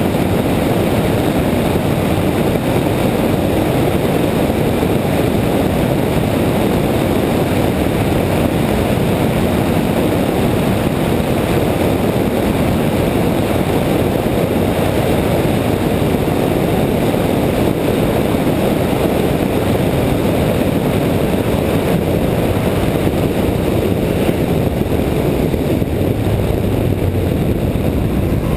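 Car driving along at steady speed, heard from a camera mounted outside on the hood: a steady rush of wind over the microphone mixed with road and engine noise.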